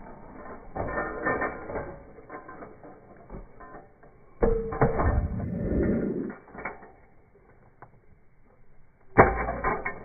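Kick scooter's small wheels rolling over cracked asphalt, a rough rolling noise with scattered clicks from the deck and bars. It gets louder twice, about four and a half seconds in for around two seconds and again near the end.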